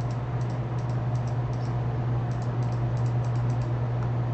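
Computer keyboard typing: light key clicks, often in pairs, in irregular runs, over a steady low hum.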